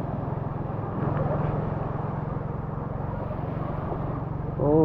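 An engine drones steadily with an even pulse, a little louder from about a second in. Near the end a person's voice calls out over it.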